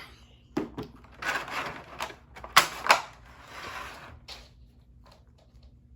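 Plastic toy packaging being handled and pried open: a run of clicks and crinkling, the loudest two snaps about two and a half and three seconds in, quieter toward the end.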